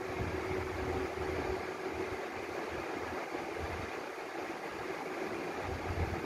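Steady mechanical hum with a faint constant tone, over a low rumble that weakens for a few seconds in the middle.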